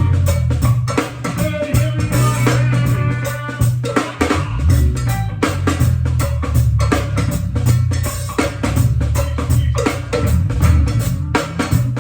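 A band playing an up-tempo groove: drum kit and percussion hits over a heavy, steady bass line.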